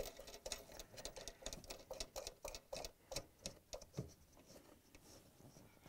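Faint, irregular light clicks and ticks of a bolt being started by hand into a washing machine's motor stator, gloved fingers working against the plastic and metal parts.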